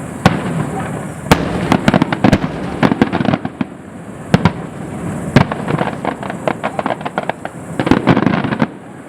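Fireworks display: a rapid run of sharp bangs and crackling shell bursts over a continuous rumble, with dense volleys about a second and a half in and again near the end.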